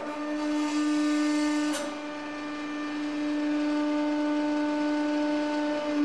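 150-ton hydraulic press running as its ram comes down onto a soft clay figure: a steady, pitched machine hum, with a brief click about two seconds in, after which the hum drops a little.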